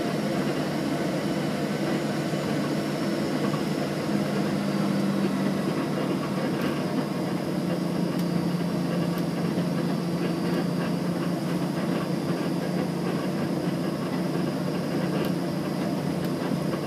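Steady engine drone of a small passenger plane heard inside the cabin while it taxis, with a faint high whine above it.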